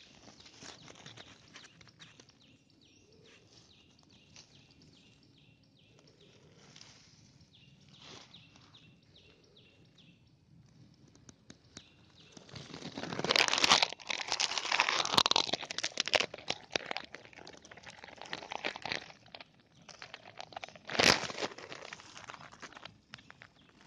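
Dry grass and dead leaves rustling and crackling, loudest from about halfway through, with one sharp crackle near the end. Earlier, a faint chirp repeats at an even pace.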